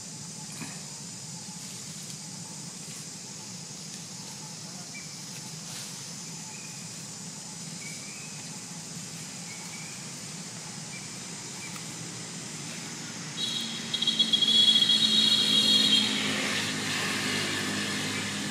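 Steady high insect buzzing in the grass. About thirteen seconds in, a much louder engine with a steady whine passes by and fades away near the end.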